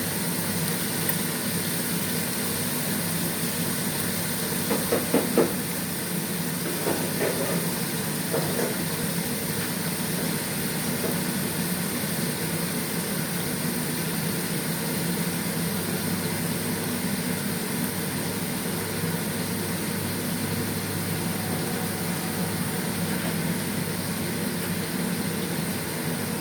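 Marinated milkfish (bangus) frying in hot oil, a steady sizzle. A few louder sharp sounds about five seconds in, with smaller ones a couple of seconds later.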